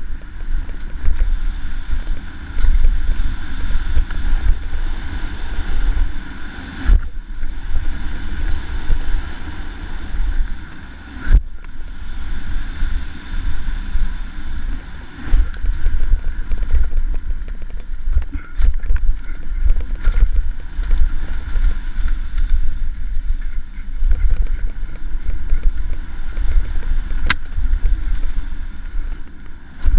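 Wind buffeting a helmet-mounted camera's microphone as a downhill mountain bike rolls fast over a dirt trail, a steady rumble with the rattle of the bike over the ground. A few sharp knocks stand out, one about 7 seconds in, another a few seconds later, and one near the end.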